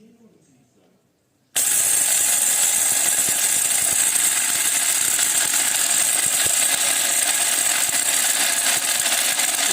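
DC solar mixer grinder switched on about a second and a half in, then running loud and steady with a high whine, its blades grinding a dry load in the small jar with a dense rattle.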